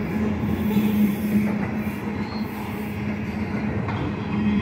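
Freight train's ethanol tank cars rolling past: steel wheels rumbling steadily on the rails, with a steady low hum.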